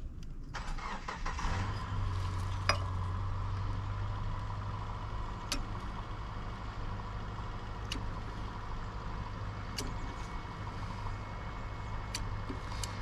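A machine motor starts and runs with a steady hum, with a few sharp metallic clicks now and then.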